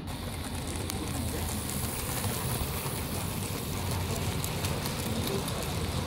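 Model railway goods wagons rolling past on the track: a steady rumble of small metal wheels on rail, with a few light clicks over rail joints.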